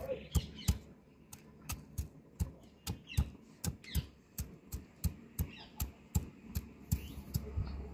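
Stone pestle (nora) pounding peeled garlic cloves on a stone grinding slab (shil): a steady run of sharp knocks, about two to three a second.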